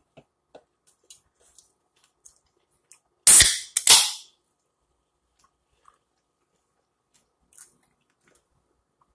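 Aluminium Coca-Cola can being opened: two loud, sharp cracks from the pull tab about half a second apart, the second trailing off briefly. Faint small clicks come before and after.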